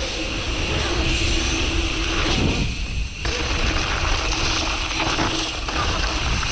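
Enduro mountain bike ridden fast, its tyres rolling over concrete and then over loose gravel and dirt from about three seconds in, with wind buffeting the GoPro's microphone.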